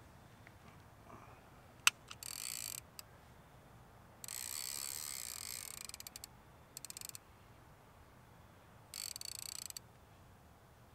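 Fishing reel being cranked to wind in line, in four short spells of fast ratcheting clicks, the longest nearly two seconds, with a single sharp click just before the first.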